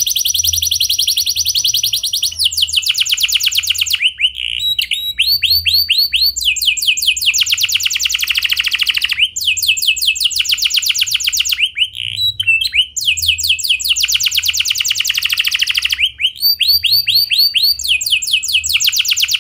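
Domestic canary singing a long, clear rolling song. Very fast trills run one after another, the trill type changing every couple of seconds, and it opens with a steady high buzzing roll.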